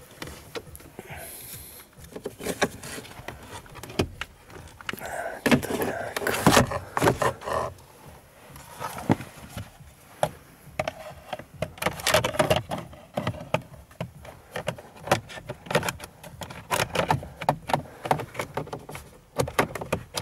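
Hands handling plastic parts and tools at a car's steering column: an irregular string of clicks, taps and rattles, busiest a few seconds in and again around the middle.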